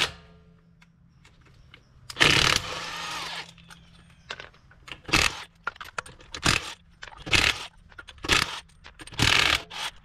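Lug nuts being removed from a pickup's wheel: a short burst from an impact wrench about two seconds in, then a run of brief metallic clinks and rattles about once a second as the nuts and socket are handled.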